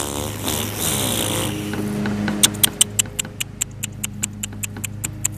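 A rushing noise for the first couple of seconds, then quick, regular crunches of English bulldog puppies' paws on gravel, about five a second, over a steady low hum.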